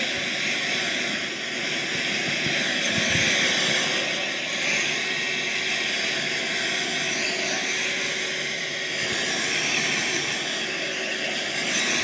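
Handheld hairdryer running steadily, blowing air with an even rush of noise.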